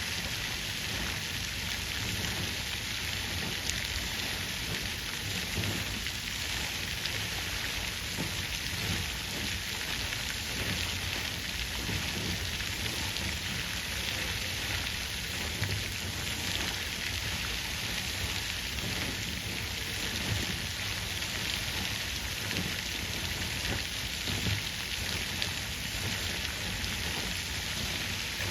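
Water fountain splashing steadily: an even hiss of falling water with no change in level.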